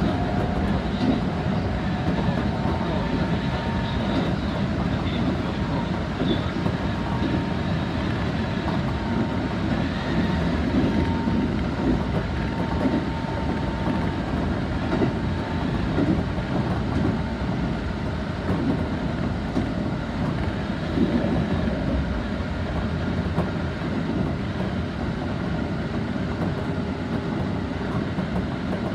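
Keisei Oshiage Line commuter train running along the track, heard from inside the front car: a steady rumble of wheels on the rails, with a faint steady whine above it.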